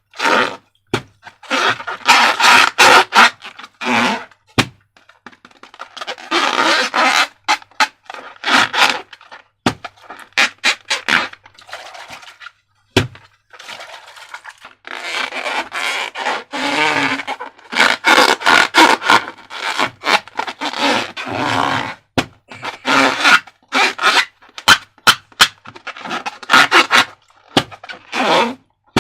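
Slime and balloons being handled in slime-making: repeated bursts of scraping and crackling, with sharp clicks between them.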